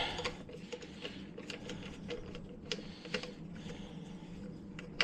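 Scattered light clicks and taps of hand tools and bolts being handled while a boiler's burner assembly is unbolted by hand, over a steady low hum. A sharper click comes right at the end.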